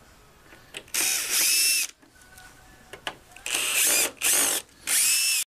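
Cordless drill/driver turning a bolt in a wooden crib rail: one run of about a second, then three shorter runs in quick succession near the end, each a high motor whine that rises as the bit spins up. Light clicks of the tool and bolt between the runs.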